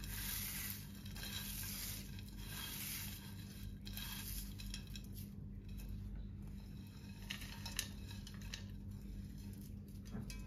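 Crisp fried onions rustling and crackling as they are pushed by hand off a plate onto raw chicken in a pan, with a few light clicks against the plate in the second half.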